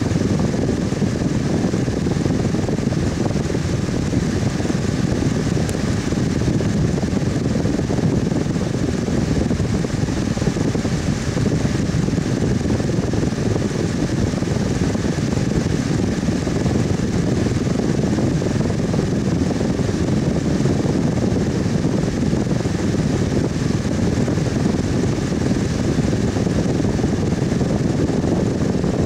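Electric fan running at a constant speed: a steady rush of moving air, deepest in the low range, with a faint steady hum above it.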